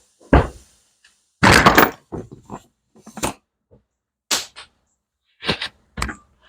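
A string of separate metallic knocks and clatters, about seven in all with a longer rattling one a second and a half in, from tools and parts being handled on a workbench during valve-guide work on a motorcycle cylinder head.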